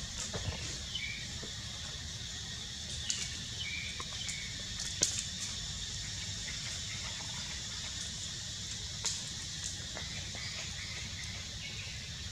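Outdoor ambience: a steady high-pitched hiss over a low rumble, with a few sharp clicks, the loudest about five seconds in, and some short faint chirps near the start.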